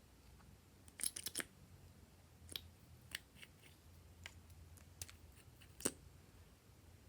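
Glossy slime being worked by hand, giving off sharp little clicks and pops: a quick run of about four around a second in, then single pops roughly once a second.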